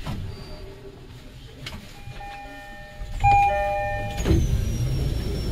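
Electronic chime tones: several steady notes sound together for about two seconds. From about three seconds in a louder low rumble begins, with a high whine that slowly falls in pitch.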